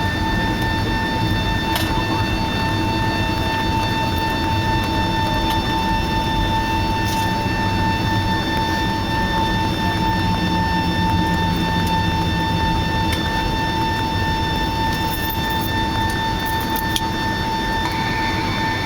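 Cabin noise inside a Boeing 757 airliner: the twin turbofan engines give a steady whine with a constant high tone over a rumble of air and rolling noise.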